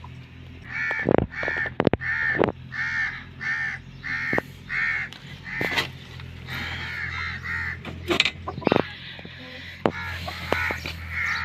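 Crows cawing in a quick run of about ten short caws, then more scattered caws, with sharp knocks and clicks throughout.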